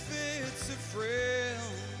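Live singing with band accompaniment: a voice holds long notes that bend in pitch over steady sustained chords and bass, a new note starting about a second in.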